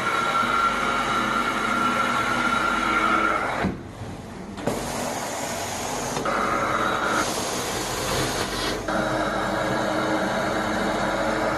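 Carpet-cleaning suction running steadily with a high whine. It drops off briefly about four seconds in, then changes tone a few times as the tool is worked over the carpet.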